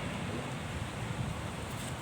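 Steady wind noise on the microphone.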